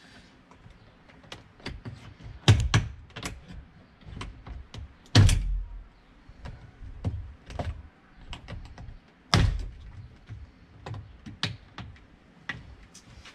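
Irregular clicks and knocks of a Porsche Macan's plastic interior door trim and its retaining clips being handled and worked loose, with three louder thunks spread through.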